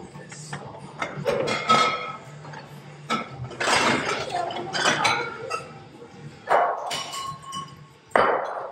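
Ceramic plates and glass smashing in several loud crashes, with clinking shards after each break.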